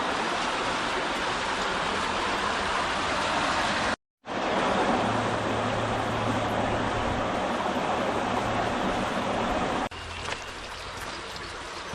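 Steady rushing and trickling of a small rocky creek's running water. It cuts out completely for a moment about four seconds in, then drops abruptly to a quieter level near the end.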